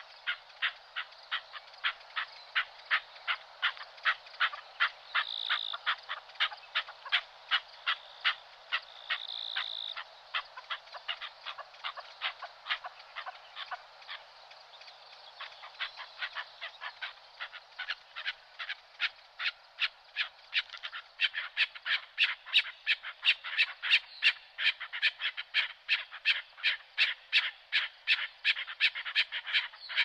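Frogs croaking in a fast, steady rhythm, about two to three croaks a second, growing louder and denser about two-thirds of the way through. A couple of short high chirps come in about five and ten seconds in.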